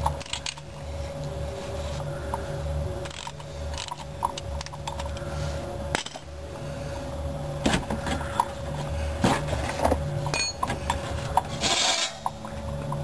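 Scattered light metallic clicks and clinks from a cap-type oil filter wrench and socket extension as a loosened canister oil filter housing is turned off by hand, with a short rubbing hiss near the end.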